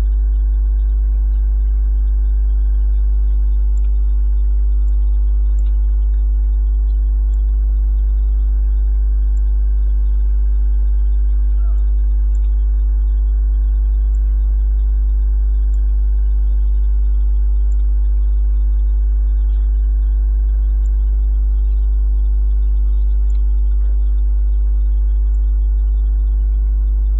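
Steady low electrical hum with many evenly spaced overtones.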